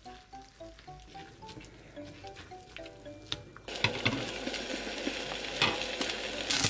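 Light plucked background music with soft clicks from a spoon mixing egg, glass noodles and zucchini in a steel bowl; about three and a half seconds in it gives way to loud sizzling of egg-and-zucchini patties (aehobak gyeran mandu) frying in oil in a pan, with a few taps of a metal spatula.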